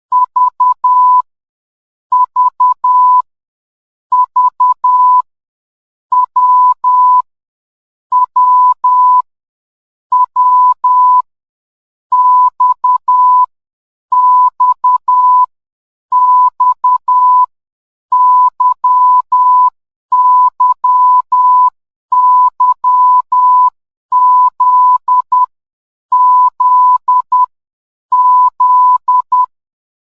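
Morse code sent as beeps of a single steady tone near 1 kHz, with a short group of dots and dashes about every two seconds, spelling the last letters of the alphabet, V through Z.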